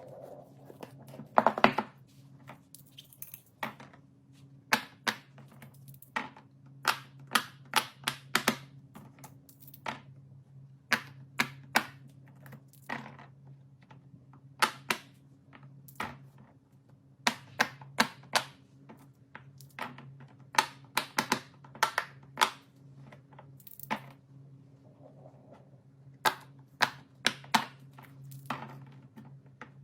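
Scattered sharp clicks and taps, some single and some in quick runs, over a steady low hum: small hard objects being handled and tapped, as when fidget toys are popped and played with.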